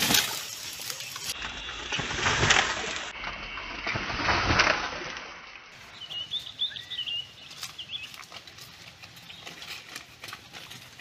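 A few loud bursts of pigeon wings flapping in the first five seconds, then several short bird chirps with faint rustling and light clicks.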